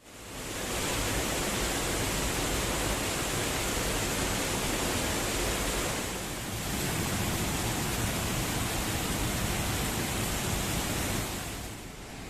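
Waterfall's falling water rushing in a steady, dense noise. It fades in at the start, dips briefly about halfway through and drops to a lower level near the end.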